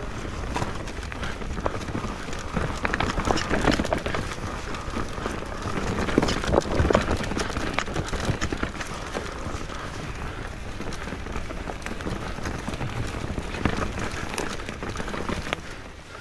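Mountain bike riding downhill on a rocky forest trail: tyres rolling over dirt, roots and stones, with the chain and frame rattling in irregular knocks over a low rumble.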